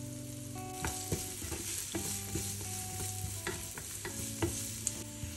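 Diced potatoes sizzling in oil in a non-stick frying pan while a wooden spatula stirs them. The spatula scrapes and taps against the pan repeatedly from about a second in.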